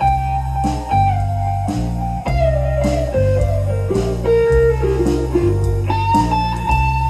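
Electric blues trio playing: electric guitar, bass guitar and drums. The guitar holds a long note that slides down in pitch about three seconds in, plays lower notes, then jumps back up near the end, over a repeating bass line and a steady drum beat.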